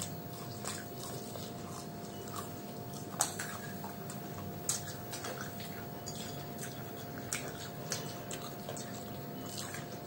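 People eating crisp fried cauliflower pakoras by hand: scattered short crunches and mouth clicks, a few seconds apart, over a steady faint hum.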